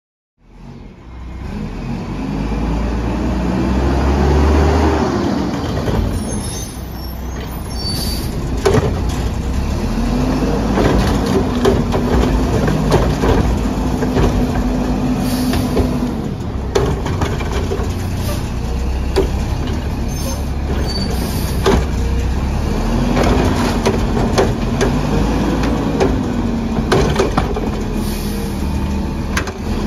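Garbage truck running, its engine revving up and settling back several times, with scattered metallic clanks and bangs.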